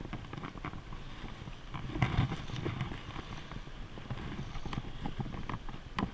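Water running and splashing in a shallow, rocky stream riffle, with irregular knocks and clicks from handling close to the microphone, loudest about two seconds in.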